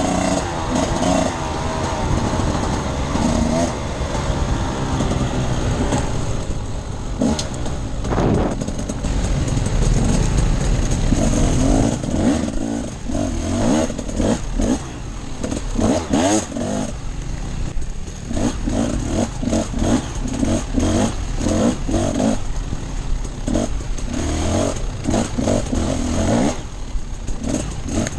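Enduro motorcycle engine being ridden off-road, the revs rising and falling repeatedly as the throttle is worked.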